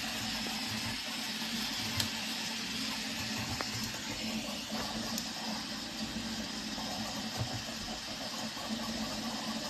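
VzBot 3D printer running a high-speed print: a steady whirring mechanical noise, with one sharp click about two seconds in.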